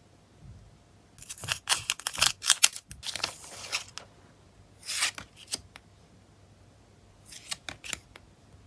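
Crackling and snipping as a sealed plastic photocard packet is opened, in three separate bursts with short pauses between them.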